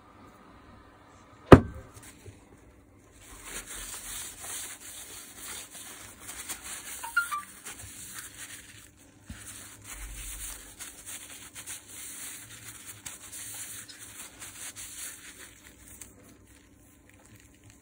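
A rag rubbing grease off the steel striker of a Makita HM1307C demolition hammer in gloved hands: a scratchy rubbing in strokes with short pauses, from about three seconds in until near the end. A single sharp knock comes about a second and a half in.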